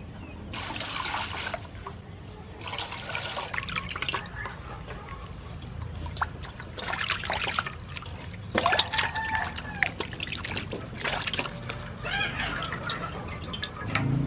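Water splashing and sloshing in a metal basin as raw beef is rinsed and rubbed by hand, coming in about half a dozen irregular bursts.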